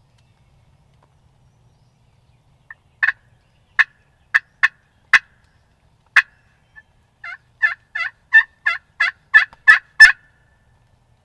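Loud turkey hen-style calling: a few sharp, spaced clucks or cutts starting about three seconds in, then a quickening run of about a dozen yelps that ends near the ten-second mark.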